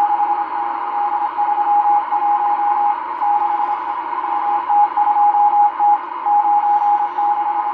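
M12 numbers station sending Morse code numbers, received on a Realistic DX-394 shortwave receiver: a single beeping tone keyed on and off in long and short marks over steady radio hiss.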